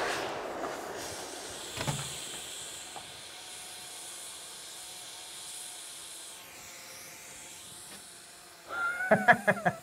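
Echo of a detonating-cord blast on a 300-bar oxygen cylinder dying away, with a second smaller thump about two seconds in. It is followed by a faint steady hiss, and near the end by a quick run of sharp clattering clicks.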